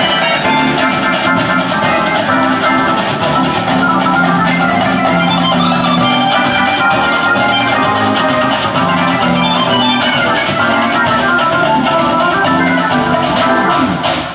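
Yamaha S950 keyboard playing music through a PA system: a melody over a full backing of drums, guitar-like plucked strings and bass.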